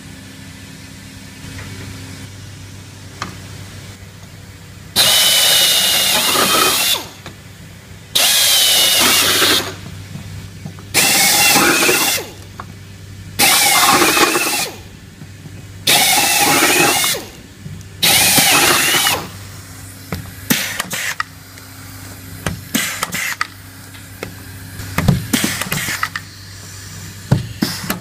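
Pneumatic air drill run in six bursts of about two seconds each, drilling rivet holes through the sheet metal upturn, each burst a high wavering whine over the hiss of air. After that comes a run of irregular sharp clicks and snaps.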